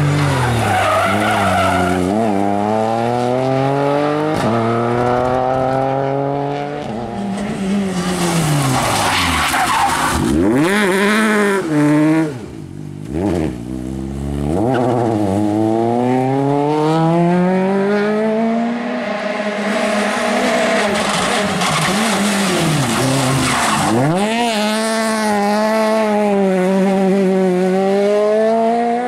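Rally cars, a Ford Fiesta and then Peugeot 208s, accelerating hard one after another through a stage. Each engine revs up sharply and drops back at each upshift, a few times in quick succession.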